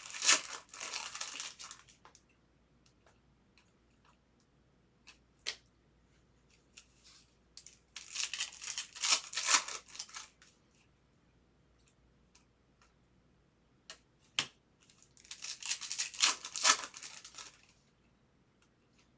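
Trading-card pack wrappers being torn open and cards handled: three rustling, tearing bursts several seconds apart, with light clicks and taps between them.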